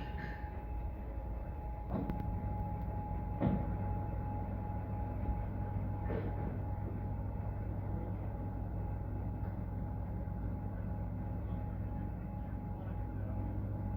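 A steady mechanical drone with a constant tone, broken by sharp knocks about two, three and a half and six seconds in.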